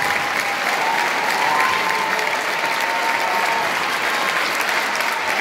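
Concert audience applauding steadily, a dense patter of hand claps.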